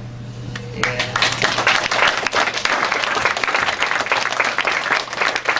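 Audience applause that breaks out about a second in, right after the last guitar note fades, and keeps going strongly. A low steady hum sits underneath.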